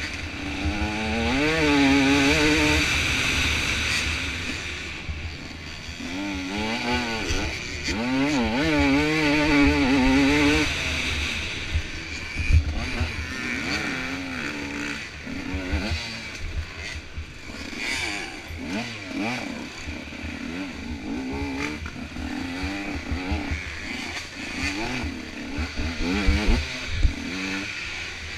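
Dirt bike engine heard from an on-board camera, its pitch rising and falling quickly as the throttle is worked through a motocross race lap, loudest in the first ten seconds or so. Occasional sharp knocks and clatter from the bike over rough ground sound above a steady hiss.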